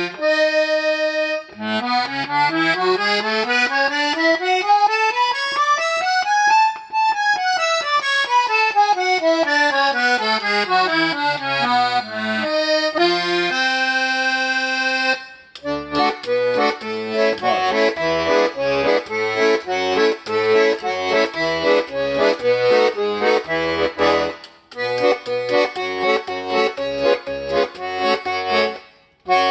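Vyatka garmon (Russian button accordion), freshly repaired and retuned, being played as a test. It opens with a chord, then runs a scale up and back down in parallel notes and holds another chord. From about halfway it plays a tune with the left-hand bass and chord buttons pumping in rhythm.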